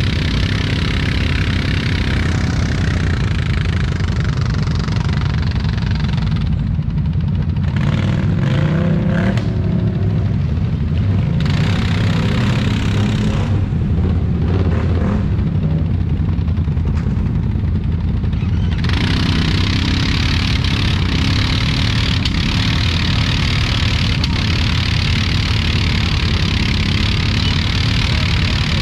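ATV engine running under way, its pitch rising and falling with the throttle. A loud hiss lies over it and fades for a stretch in the middle.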